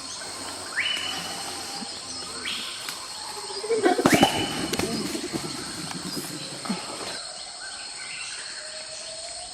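Nature ambience: a steady high insect drone, and a bird repeating a call that rises and then holds, about every two seconds. A louder burst of crackling and lower sounds about four seconds in.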